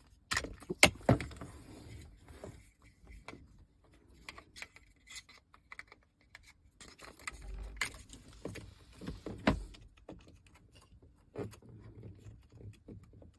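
Hands working a wire and its plug into the car's dashboard: irregular clicks, rattles and light knocks of plastic and small parts being handled, the sharpest about a second in and again near nine and a half seconds.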